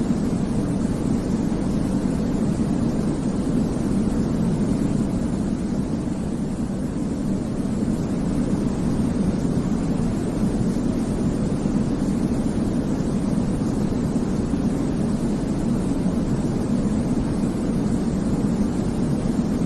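Steady, unchanging white-noise sleep sound, a deep low rushing hiss with little top end, like the drone inside an aircraft cabin.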